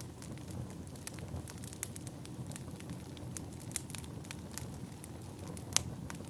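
Firewood burning, crackling with scattered sharp pops over a low steady rumble; one louder pop near the end.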